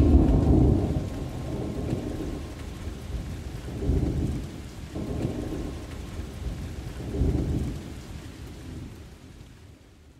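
Thunderstorm: low rolling rumbles of thunder over steady rain. The loudest rumble is at the start, with others about four and seven seconds in, and the whole storm fades away toward the end.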